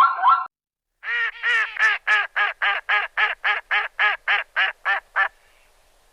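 A duck quacking in a rapid, even run of about fifteen quacks, roughly four a second, that stops abruptly.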